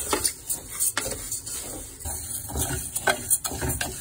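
Wooden spatula stirring dry rice and split lentils in an aluminium pressure cooker as they dry-roast without oil: a dry rustle and scrape of grains against the metal, with irregular knocks of the spatula on the pot.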